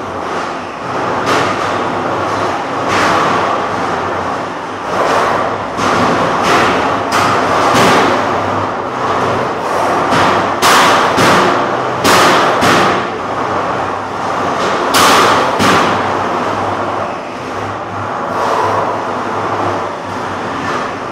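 Featherweight combat robots fighting: a steady whir and rumble of electric motors, broken by a string of sharp hits as the robots strike each other and the arena, most of them between about seven and sixteen seconds in.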